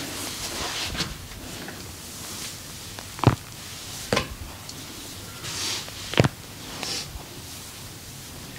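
Hands at work in a massage: soft rubbing and rustling, broken by three sharp smacks about three seconds in, again a second later, and once more two seconds after that.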